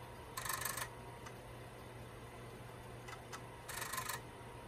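Radio Shack TRS-80 Model I 5.25-inch floppy disk drives working through a disk backup: two half-second bursts of rapid head-stepping chatter about three seconds apart, with single clicks between them. A steady low hum runs underneath.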